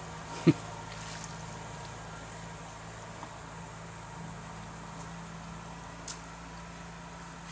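Steady low hum of an idling boat motor. One loud, short thump comes about half a second in, and a faint click comes later.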